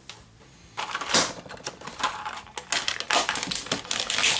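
Clear plastic blister pack crackling and clicking as it is cut open with a snap-off utility knife and pried apart, a rapid run of sharp crinkly clicks starting about a second in.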